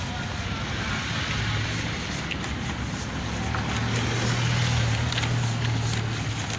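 Street traffic with a motor vehicle engine running close by, a steady low hum that swells about a second and a half in and again from about three seconds in before fading near the end.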